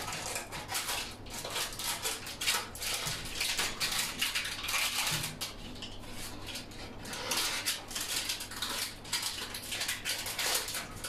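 A spatula scraping and clicking against a baking tray and its baking paper in a run of irregular short strokes, prying off baked pizza that has stuck fast to the paper.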